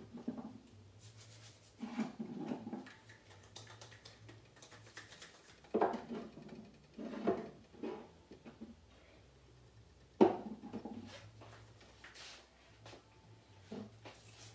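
Scattered knocks, clinks and rustles from someone rummaging in a kitchen for seasoning, with one sharper knock about ten seconds in.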